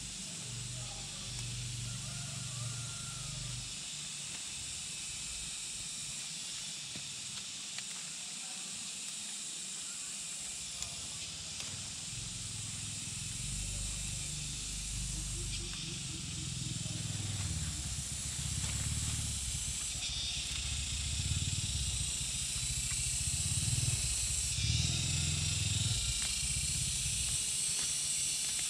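Steady high-pitched hiss of outdoor background noise over uneven low rumbling, growing slowly louder through the second half.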